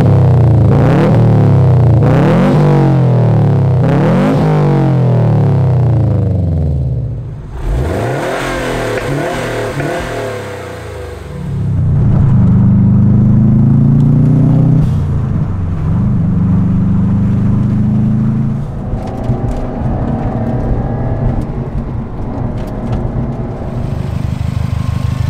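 Turbocharged flat-four engine of a 2018 Subaru WRX STI breathing through a new Greddy catback exhaust. It is revved sharply several times, each rev rising and falling quickly, then accelerates in two rising pulls while driving, heard from inside the car, and settles to a steadier lower note near the end.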